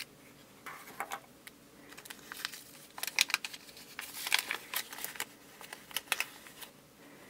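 Crinkling of the small plastic bag of toy parts and the paper instruction leaflet from a Kinder Surprise capsule as they are handled and unfolded, in faint, irregular crackles.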